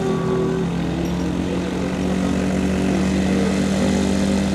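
Microlight trike's engine and propeller running steadily as it taxis on the ground.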